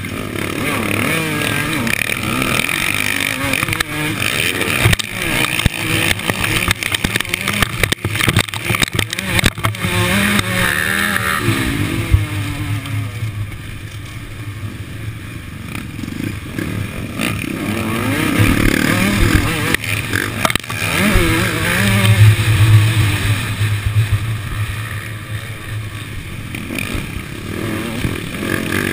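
Two-stroke Suzuki RM motocross bike engine revving hard and backing off as it is ridden through the gears, its pitch rising and falling, with sharp knocks and rattles in the first half and other motocross bikes running close by. Heard from a helmet-mounted camera, with wind buffeting on the microphone.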